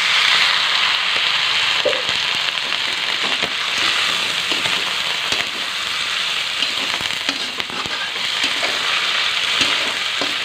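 A splash of water hitting the hot oil in a wok sets off a sudden sizzle that keeps going as a metal spatula stirs the shredded tuna and chillies, with scattered scrapes and clinks against the pan.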